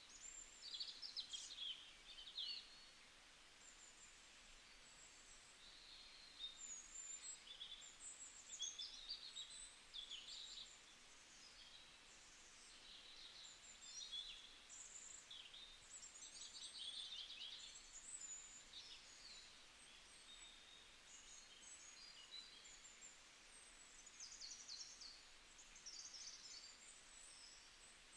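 Faint birdsong: small birds chirping and trilling in many short, high calls that overlap, over a low steady hiss.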